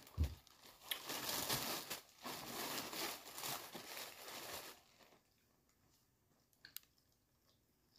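Food packaging crinkling and rustling as it is handled, for about five seconds, then it stops.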